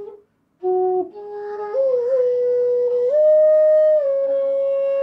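C-sharp bass bansuri (Punam Flutes) being played: a held note that breaks off for a breath, then a phrase that slides up and steps higher before settling on a long sustained note.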